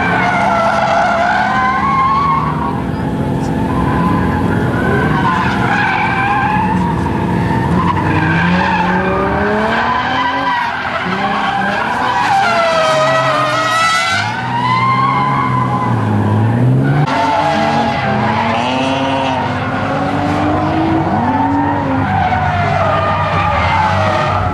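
Drift cars sliding through a corner one after another, tyres screeching and engines revving up and down as they hold the slide. About midway one engine revs hard and high.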